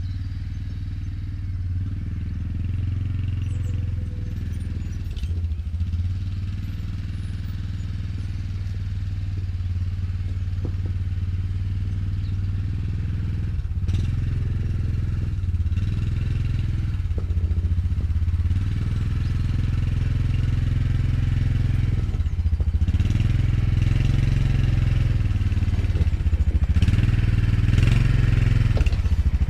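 Quad bike engine running as it drives in towing a trailer, growing steadily louder as it approaches.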